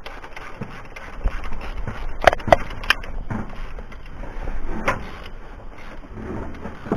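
Metal parts and hand tools clinking and scraping as bolts are worked on a truck engine's exhaust header, with a few sharp metallic knocks, the loudest about two to three seconds in.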